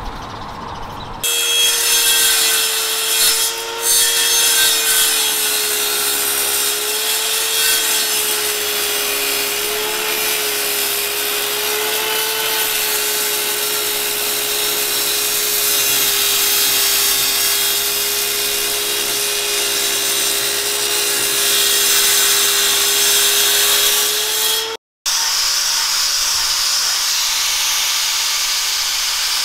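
Small table saw running, its circular blade cutting a wooden block with a steady whine that wavers a little in pitch. Near the end it cuts off and an angle grinder with a sanding disc runs with a higher, hissing whir.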